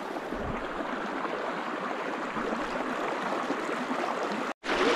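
Small shallow creek running, a steady babbling water sound. It cuts out for an instant near the end and comes back a little louder.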